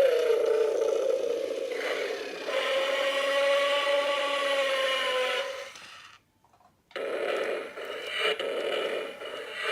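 Battery-operated toy dragon's electric motor and plastic gears whirring with a steady whine, winding down about six seconds in. After a short pause it starts again with a rougher, uneven rattling.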